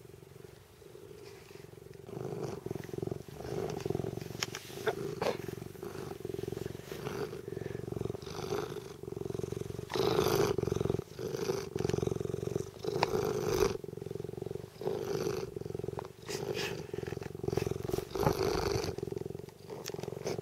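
Tonkinese cat purring close to the microphone, starting about two seconds in and swelling and easing with each breath. Its fur brushes against the microphone, giving scattered scratchy rustles.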